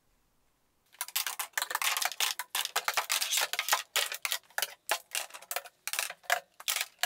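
Metal clamps being handled and tightened, giving a rapid, irregular run of sharp clicks and clinks that starts about a second in.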